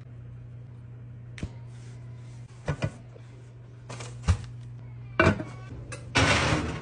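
Kitchen handling sounds over a steady low hum: a few scattered clinks and knocks of a metal pot and utensils as a dough loaf on parchment is lowered into it. Near the end comes a louder, longer rustling scrape as the pot is slid into the oven.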